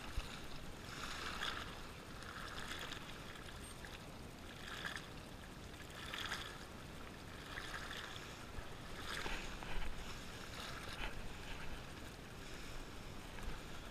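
Small waves washing and sloshing against the rocks of a boulder breakwall, coming in uneven surges every second or two.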